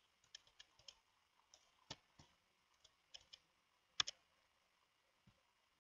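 Light, irregular clicks of a computer keyboard and mouse being used to enter and paste values into a spreadsheet, a dozen or so taps with a sharp pair about four seconds in.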